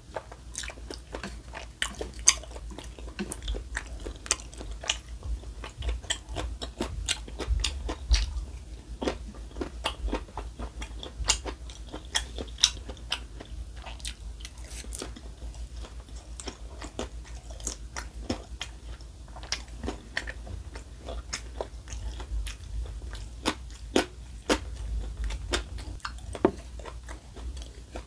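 Close-miked eating: a person chewing and biting food, with many sharp crunchy bites and mouth clicks, including bites into fried dumplings and tteokbokki noodles.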